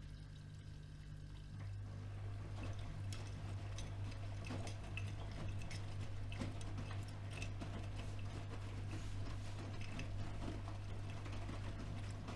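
AEG Öko-Lavamat front-loading washing machine mid-wash: a steady low motor hum, with water and wet laundry sloshing in the drum and light clicks. About a second and a half in, a faint higher whine stops and the hum grows stronger.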